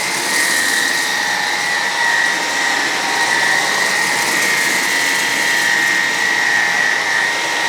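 Hoover Emerge Pet cordless stick vacuum running steadily on high power while pushed over a litter-covered rug: an even motor whine over the rush of air. It is failing to pick up the kitty litter and spits much of it back out.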